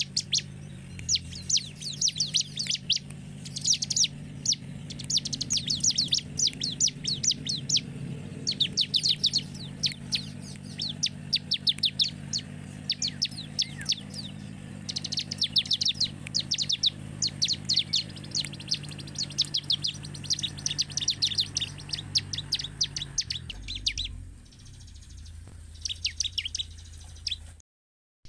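Bar-winged prinia singing: bursts of rapid, sharp chirps, one burst after another. A steady low hum runs underneath until near the end, and the sound cuts out completely for a moment just before the end.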